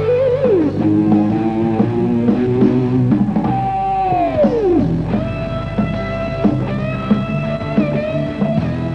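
Rock music led by an electric guitar playing a bending melody, with one long falling glide about halfway through.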